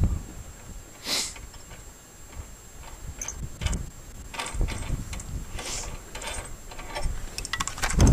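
A scattering of light mechanical clicks, knocks and scrapes, with a short noisy scrape about a second in and a quick run of clicks near the end, over faint wind rumble.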